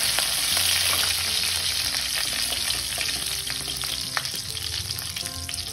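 Curry leaves, mustard seeds and cumin sizzling in hot oil as a tadka, stirred with a wooden spatula. A loud, steady sizzle with a few sharp pops, easing slightly after the first second or so.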